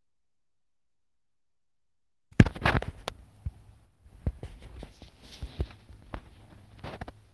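Dead silence for about two seconds, then close handling noise from a phone camera being held over a printed textbook: a sharp knock, then scattered clicks, taps and paper rustles over a faint low hum.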